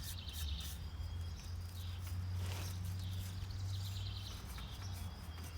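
Insects chirping in short pulsed trills, twice, over a steady low hum.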